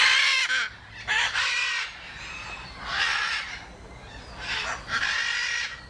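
Chickens calling repeatedly: about five short calls of around half a second each, the loudest at the start.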